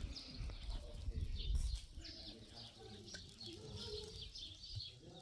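Small birds chirping repeatedly in quick, short calls, over a low rumble that is strongest in the first couple of seconds.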